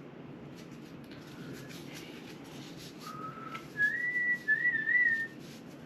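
A person whistling a short phrase: a low note, then two higher notes, the last one wavering up and down. Light clicking and rustling of handling comes before it.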